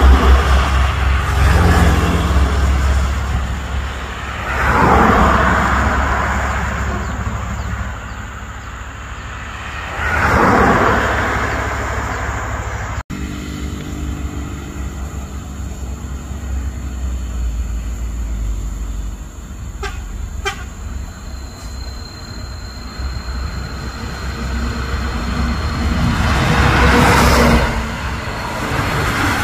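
Buses and a truck passing close by on a road: diesel engine rumble and tyre rush swelling up and fading away several times as each vehicle goes past. About two-thirds of the way through there are two short toots, like a vehicle horn.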